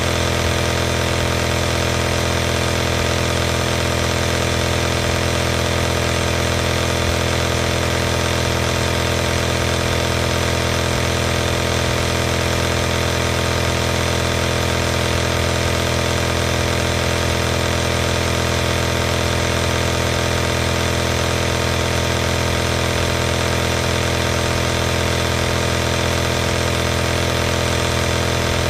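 Home compressor nebulizer running continuously: the compressor motor's steady hum with a hiss of air over it, unchanging in pitch and level.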